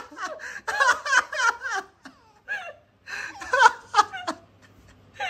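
People laughing in quick, repeated giggles, two spells of it with a short pause between.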